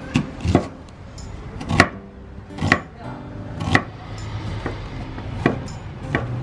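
Wide-bladed kitchen knife chopping an onion and a tomato on a wooden cutting board: about eight sharp knocks of the blade hitting the board, roughly one a second.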